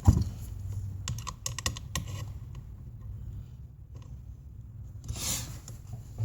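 Light clicks and taps of TO-247 power MOSFETs being handled and pressed into a circuit board, with a quick run of clicks about a second in and a short rustle near the end.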